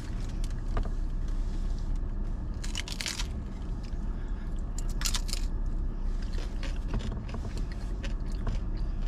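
Crunchy fried corn tostada shells being bitten and chewed, with bursts of crackling crunch about three and five seconds in, over a steady low hum.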